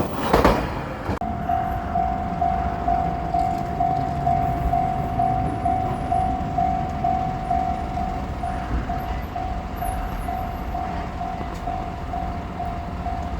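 The last of a JR Shikoku 2700 series diesel limited express clattering past, dying away within about a second. Then a level-crossing alarm rings on: one electronic tone repeating at an even, steady beat.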